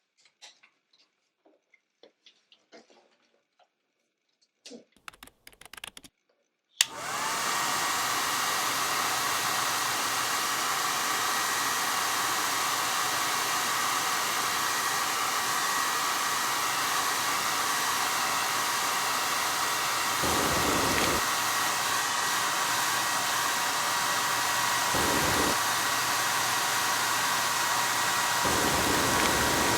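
Hair dryer switched on with a click about seven seconds in, then running steadily: a rush of blowing air with a thin motor whine. The air swells deeper briefly a few times near the end. Before it switches on there are only faint small handling clicks.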